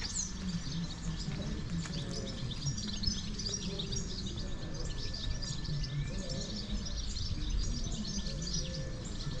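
Many small birds chirping and twittering in the trees, over a steady low background hum of outdoor ambience.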